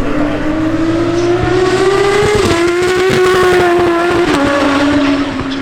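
Supercar engine under hard acceleration, its note climbing, then stepping down twice, about halfway through and again near the end.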